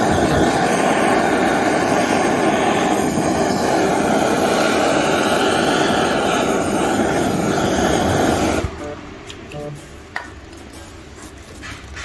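Butane gas torch on a cassette gas can running at full flame with a loud, steady rushing hiss as it lights cherry wood smoking chips in a foil tray; it cuts off suddenly about eight and a half seconds in.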